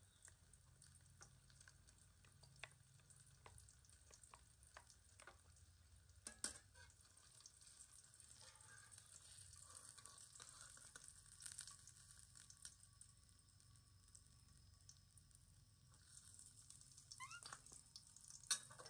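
Quiet, steady sizzle of food frying in a steel wok on a portable gas burner, with metal utensils clicking and scraping against the pan and bowl. A sharper knock comes about six seconds in, and another near the end.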